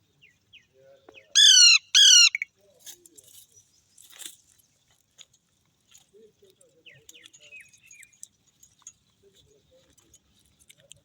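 A pet parakeet gives two loud, harsh screeches in quick succession about a second and a half in, then soft chatter, faint chirps and small clicks.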